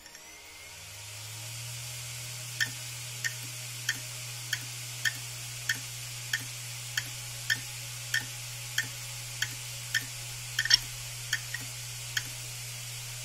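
Samsung HD321KJ 7200 rpm hard drive, opened, with its spindle motor spinning up into a steady low hum. About two and a half seconds in, the head actuator starts clicking sharply, roughly once every 0.6 s; this repeated clicking is typical of heads that cannot read the platters.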